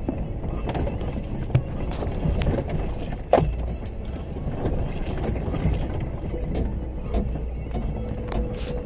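Jeep Wrangler Unlimited crawling over rocks, heard from inside the cabin: a steady low engine rumble with irregular knocks and clunks from the body and suspension, the loudest about one and a half and three and a half seconds in. A faint steady tone joins in over the last couple of seconds.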